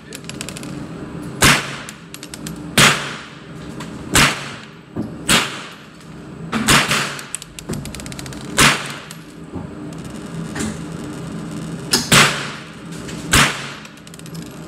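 Semi-automatic AR-style rifle fired at a slow, deliberate pace: about eight sharp shots, roughly one every one to two seconds with a longer pause in the middle, each ringing out in the enclosed range. A steady low hum runs underneath.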